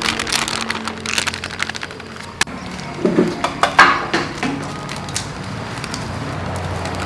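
Plastic flour packet crinkling and crackling as it is shaken and squeezed out over a bowl, with a cluster of louder crackles about three to four seconds in.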